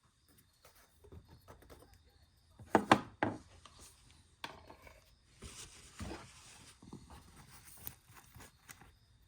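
Handling clatter from a plastic quart oil bottle and funnel at an engine's oil fill: a few sharp knocks a little under three seconds in, with lighter taps and rustling around them.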